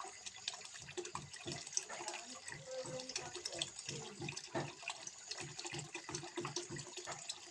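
Water trickling and splashing into a small fish pond: a steady stream of small splashes, with a low gurgle that pulses about three times a second in the second half.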